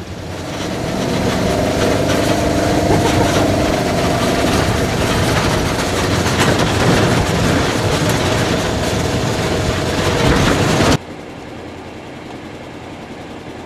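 Side-by-side UTV driving over rough ground: engine running, with the vehicle rattling. The sound cuts off suddenly about eleven seconds in, leaving a much quieter steady background.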